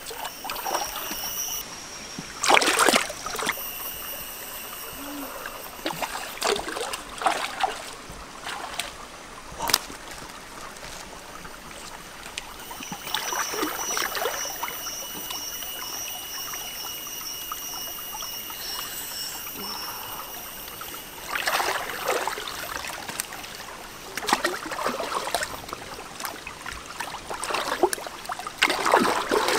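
Water splashing and trickling, in short irregular bursts over a steady watery background.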